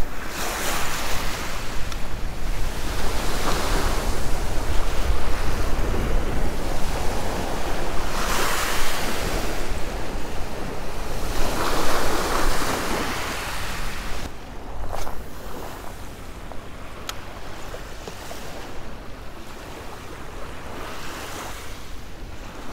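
Small waves washing up onto a shelly beach, each wash swelling and fading away, with wind rumbling on the microphone. The waves grow quieter over the last third.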